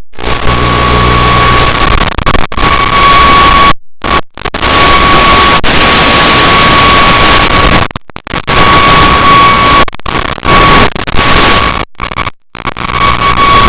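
Static from an analog FPV video link's audio channel: a loud, even hiss with a steady high tone. It cuts out to silence briefly three times.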